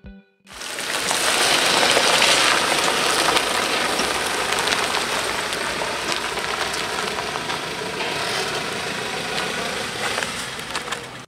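Ford Ranger pickup driving off across gravel, engine running and tyres rolling, heard as a steady rushing noise. It starts about half a second in, is loudest around two seconds in, and cuts off abruptly at the end.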